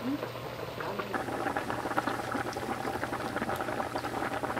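Clams and their juices sizzling and bubbling in a hot frying pan, a steady dense crackle, as white wine is poured in over the opened clams.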